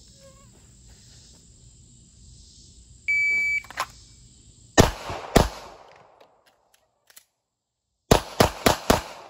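A shot timer gives one steady high beep. A Sig Sauer P365 XL 9mm pistol then fires two shots about half a second apart, and after a pause for a slide-lock reload fires four quick shots, about four a second.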